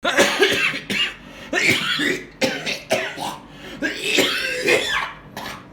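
A man coughing hard in a long fit, about six loud coughs one after another with short gaps between them.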